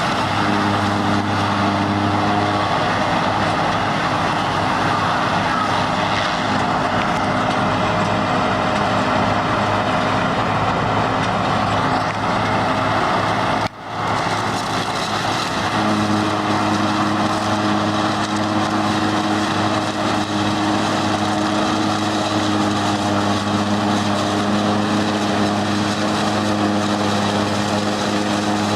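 Silage combine harvester running steadily, a constant engine hum with machinery noise over it. The sound breaks off for an instant about halfway through, then carries on with a slightly stronger hum.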